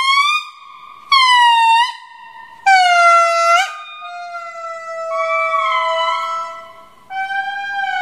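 Indri singing: a series of loud, drawn-out wails, each about a second long and sliding in pitch, with a longer, quieter note in the middle.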